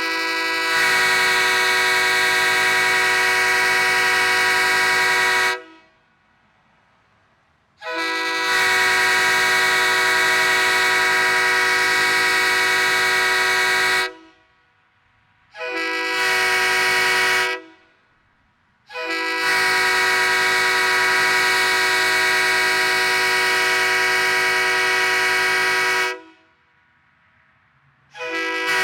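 A Leslie RS3K Supertyfon three-chime air horn sounds a steady chord. It is a Tampa-era horn with bells 31, 37 and 48 and debris cones in the bells. It gives four blasts: a long one of about five and a half seconds, another of about six seconds, a short one of about two seconds, then a long one of about seven seconds, and a fifth blast starts at the very end.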